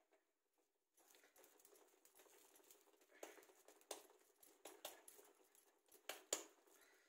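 Faint soft pats and taps of wet hands pressing a moist dal and maize-flour paste flat on a small griddle, coming several times in the second half over a faint hiss.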